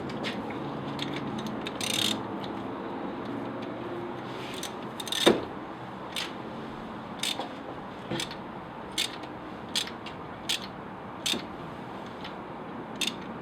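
Metal hand tools clicking and clinking while working on a car engine: one loud clack about five seconds in, then a run of short sharp clicks roughly one a second.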